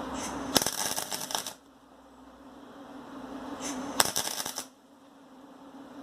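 Two short tack welds with an electric arc welder on a steel pipe: a crackling arc starts about half a second in and stops after about a second, then a second crackling burst of about a second comes near the four-second mark.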